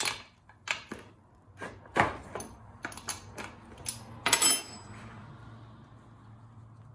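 Clicks and taps of a steel combination wrench working a bolt on a chainsaw's housing, then a louder metallic clatter with a short ring as the wrench is put down on a metal workbench, about four and a half seconds in. A faint steady low hum runs underneath.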